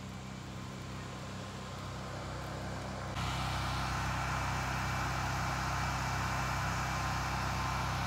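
Pressure washer engine running steadily. About three seconds in, a louder, steady hiss of high-pressure water spray comes in over it.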